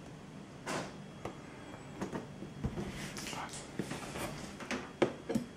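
A cardboard box being handled and turned over: scattered rustles, scrapes and light knocks, which grow busier partway through, with the sharpest knock near the end.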